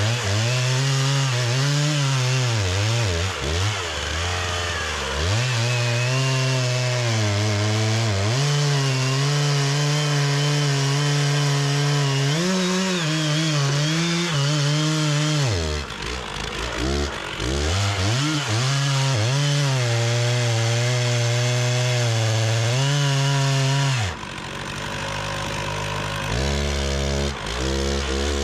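Stihl 066 two-stroke chainsaw cutting through a big red oak log at high revs, its pitch sagging and recovering three times as the cut loads and eases, the last dip also quieter.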